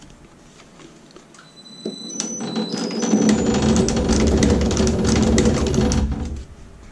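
Electric wire stitching machine starting up about two seconds in and running for about four seconds, its stitcher head cycling to drive test staples through a paper strip, then stopping near the end.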